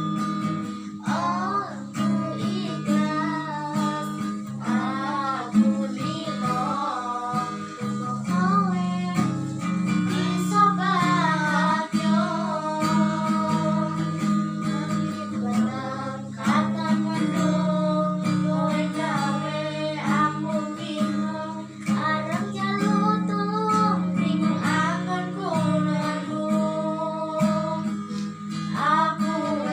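Music: a woman singing a wavering, ornamented melody over guitar and a sustained low accompaniment.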